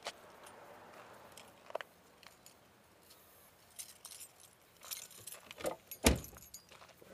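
Keys jangling and a few small clicks as the driver's door of a BMW Z3 convertible is unlatched and pulled open, with one sharp knock just after six seconds in, the loudest sound, as the door swings open, then more jingling of the keys.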